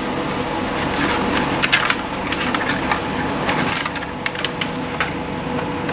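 3D-printed plastic parts of a swivelling thrust-vector nozzle being handled and fitted together: irregular clicks, creaks and crackles of plastic on plastic. A steady hum runs underneath.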